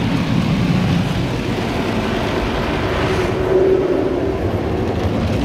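Esso Tigerwash automatic car wash's rotating brushes scrubbing across the windscreen with water spray, heard from inside the car: a steady, loud rush and rumble, with a brief hum a little past three seconds in.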